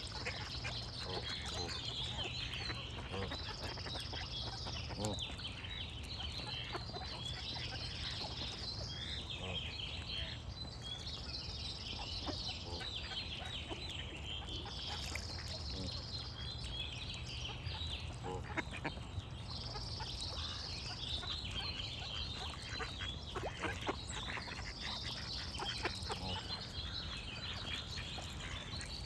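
Ducks quacking and geese honking among small birds chirping densely, with a short high steady note returning about every four seconds.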